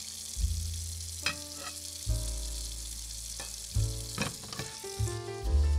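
Oil sizzling in a miniature cast-iron skillet, a steady high hiss. Behind it runs background music with low bass notes changing every second or two, and there are a few sharp clicks.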